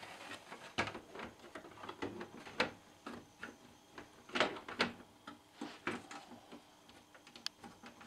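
Plastic vacuum-cleaner housing being set onto its base and pressed into place: irregular clicks and knocks of hard plastic parts, the loudest a pair of knocks about halfway through.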